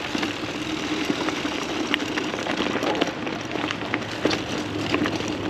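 Mountain bike rolling along, a steady hum with frequent clicks and rattles from the tyres and bike.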